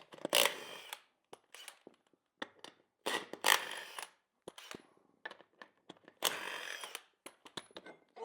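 Impact wrench run in three bursts of about a second each, undoing the nuts to take a mower wheel off, with small metallic clicks between the bursts.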